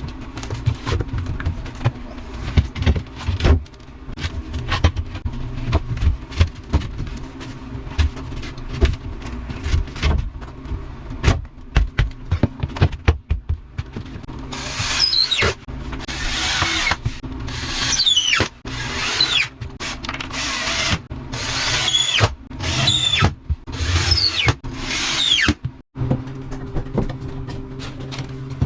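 Power drill running in repeated bursts of about a second, its whine falling in pitch within each burst. Before the drilling, a long stretch of rapid knocks and clatter, with a steady low hum underneath.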